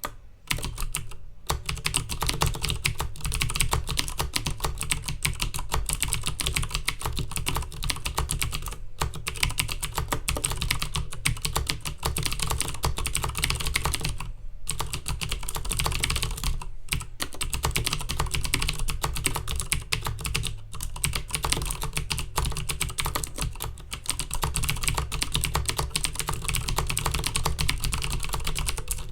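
Fast continuous typing on a Filco Majestouch Minila Air mechanical keyboard with Cherry MX Blue switches: a rapid stream of sharp key clicks, broken by a few short pauses.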